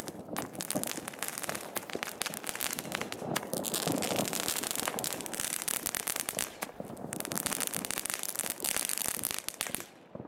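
A ground firework on the road crackling with a dense, rapid stream of small pops, stopping abruptly near the end.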